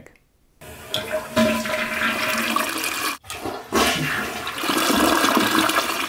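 Toilet flushing: water rushing out of the tank and swirling down the bowl. It starts about half a second in, breaks off briefly around three seconds in, then runs on.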